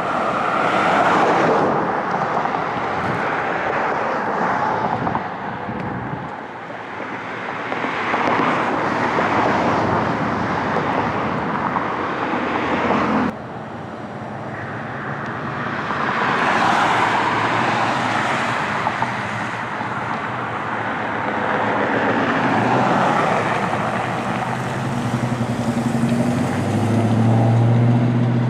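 Road traffic: vehicles passing one after another, each one swelling up and fading away. Near the end a low engine hum with a steady pitch comes in.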